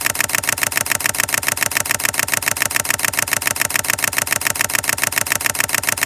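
Steady, rapid mechanical pulsing at about a dozen even pulses a second, engine-like, at an unchanging level.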